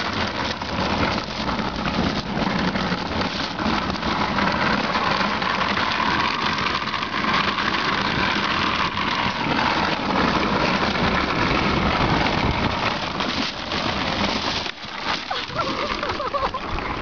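Wheels of a homemade float rolling over pavement: a steady rumbling noise with many small knocks and rattles, easing briefly about fifteen seconds in.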